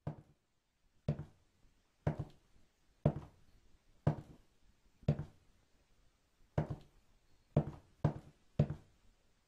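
Footsteps of hard-soled shoes on a wooden floor. Even steps come about once a second, then after a short pause three quicker steps about half a second apart near the end.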